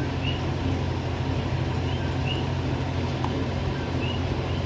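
Electric fan running steadily with a low hum, with faint short high chirps now and then.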